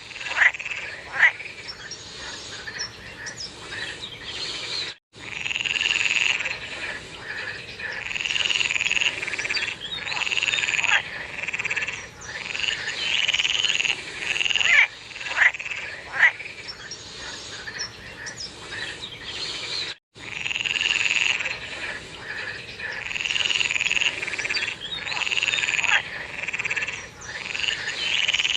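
A chorus of frogs calling, with overlapping calls about a second long repeating every second or two and short downward-sliding notes between them. The sound cuts out for an instant twice.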